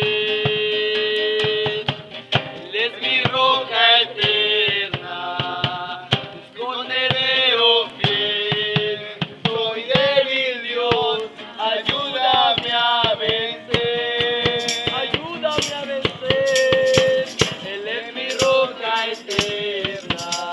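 Chant-like singing, a voice holding long notes that slide between pitches, over struck percussion and a shaken rattle. Near the middle the rattle strikes come at an even beat.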